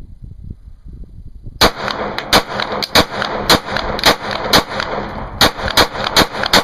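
9mm semi-automatic handgun fired in rapid succession: about ten shots, roughly two a second, starting a little under two seconds in, each crack trailing into echo.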